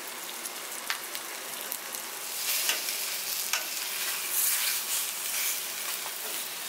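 Cornstarch-coated chicken sizzling in oil in a skillet. The sizzle grows louder about two seconds in as the pieces are turned over with metal tongs, with a few sharp clicks of the tongs against the pan.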